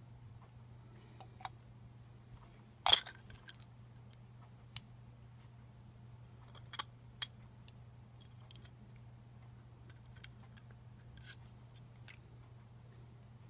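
Scattered clicks and small knocks of lightsaber replica parts and tools being handled during disassembly, with one sharper click about three seconds in and a few fainter ones spread out, over a low steady hum.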